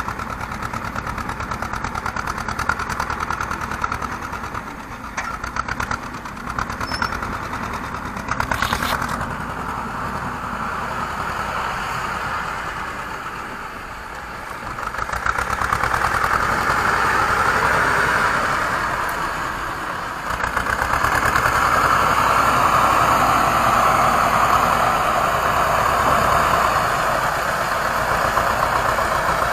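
Homemade mini tractor's engine running steadily as it pulls a horse-drawn potato digger through the rows, growing louder about halfway through and again over the last third as the tractor comes closer.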